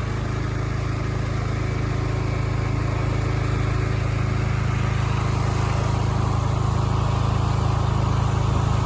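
Gas-powered pressure washer's small engine running steadily with a low hum and a hiss, growing slightly louder toward the end.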